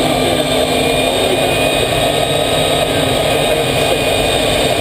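Small aircraft's engine running steadily and loud, heard from the cockpit while taxiing: an even drone with a thin constant whine above it.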